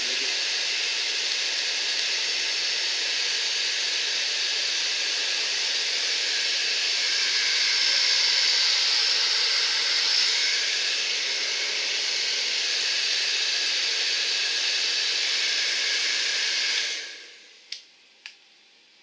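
Handheld hair dryer blowing steadily on a camera's shutter-release button, warming it to loosen what is probably grease build-up making the button stick. It switches off about seventeen seconds in, followed by two small clicks.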